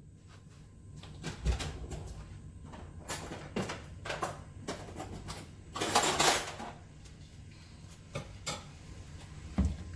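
Cooking utensils and containers clattering and knocking against a pot, a few scattered knocks with a short scraping, rustling burst about six seconds in.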